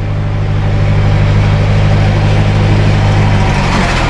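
The cable car's drive engine runs loud and steady with a low hum, hauling the open cage gondola in along its cable. The engine note changes and eases near the end.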